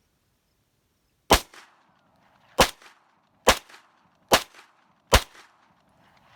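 Five pistol shots from a Springfield XD9 running a .22 LR conversion kit, firing CCI Stinger hyper-velocity rounds, about a second apart and coming slightly quicker toward the end. Each is a sharp crack with a short ringing tail.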